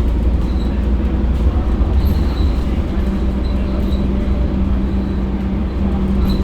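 Mercedes-Benz OC500LE city bus running: a steady low drone, with a higher hum joining about three seconds in. Faint high squeaks come and go.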